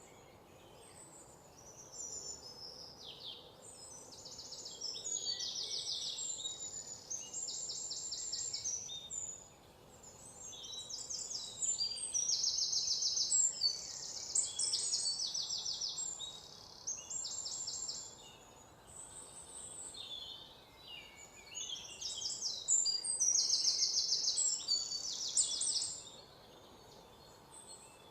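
Small birds singing: phrases of rapid, high trills and chirps, several voices overlapping, with short pauses between the phrases.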